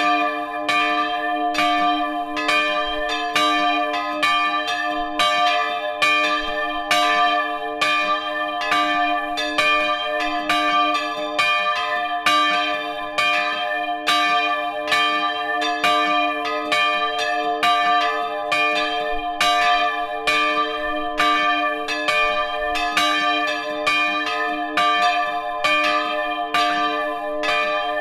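Two or more swinging church bells ringing together in a full peal, heard close up in the bell chamber. Clapper strikes follow one another without a fixed rhythm over a steady, sustained ringing.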